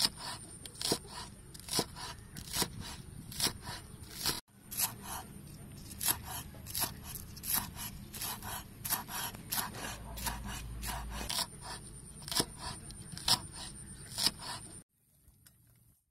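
Cleaver slicing red onion on a wooden chopping board: a regular series of knocks as the blade strikes the board, about one a second at first, then quicker, stopping abruptly near the end.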